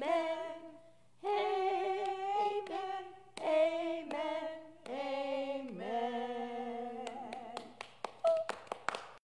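Women's voices singing a closing "Amen" unaccompanied, in long held notes, followed about seven seconds in by a few people clapping briefly.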